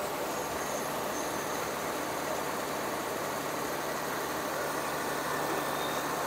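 62 kVA diesel generator set with a freshly overhauled Tata six-cylinder engine, running steadily.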